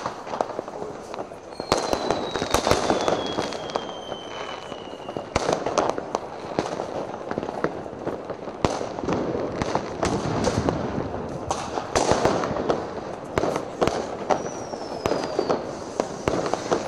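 Fireworks and firecrackers going off in a dense, continuous run of cracks and bangs. A firework whistle falls slowly in pitch for about four seconds near the start, and a shorter falling whistle comes near the end.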